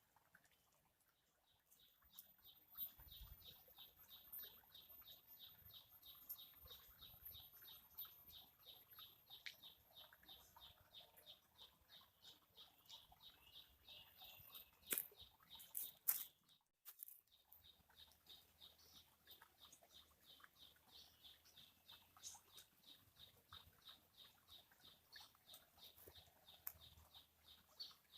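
Faint, high-pitched chirping from a small animal, repeated evenly about three times a second, with two sharp clicks about halfway through.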